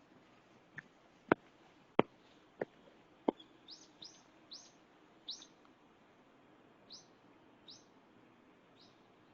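A small bird giving a series of short, high chirps, about seven over several seconds. These follow five sharp, loud clicks in the first three seconds.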